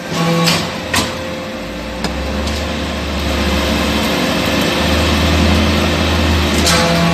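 Hydraulic metal-chip briquetting press running: a steady machine hum and hiss with sharp metallic clanks about half a second and a second in and again near the end. A deep low drone comes in about two seconds in and holds through most of the rest.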